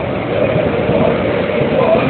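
Electric metro train running in the station: a steady, loud rumble.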